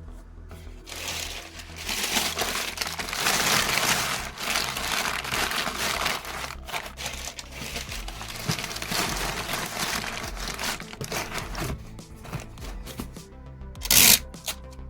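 Packing material crinkling and rustling as it is handled, over background music, with a short loud rasping burst about a second before the end.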